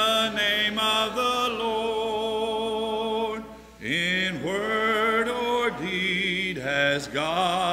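Congregation singing a hymn a cappella, a man's voice to the fore, with no instruments. A long held note in the first half, a short breath, then the next sung line.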